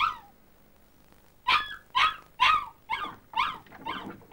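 A small pet dog left on its own giving short, high-pitched yelping calls, about two a second, each falling in pitch: the crying of a dog deprived of company.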